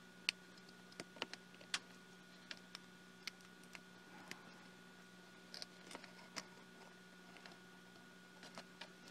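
Faint, irregular small clicks and taps of hard plastic parts being handled: fingers working at a pocket projector's small plastic lens assembly, trying to work its retaining pins loose. A faint steady hum lies underneath.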